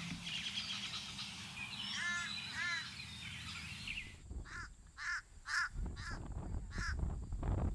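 Crows calling: two short calls about two seconds in, then, in a second recording that starts about four seconds in, a series of five short calls about half a second apart over a low rumble.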